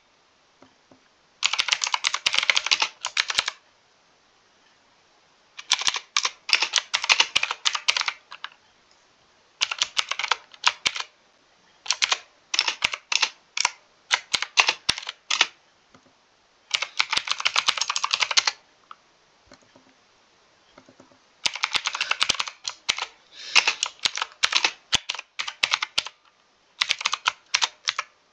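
Typing on a mechanical keyboard: quick runs of sharp key clicks in bursts of one to four seconds, broken by pauses of a second or two.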